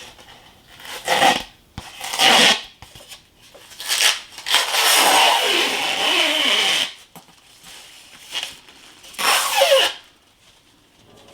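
Clear plastic film being peeled off a sheet of rigid insulation foam: four separate pulls of peeling noise, the longest lasting about two and a half seconds in the middle.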